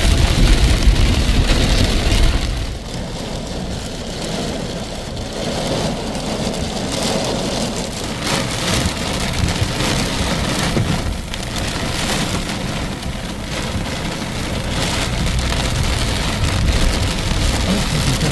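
Heavy rain pouring steadily. A loud low rumble sits under it for the first two and a half seconds, then drops away.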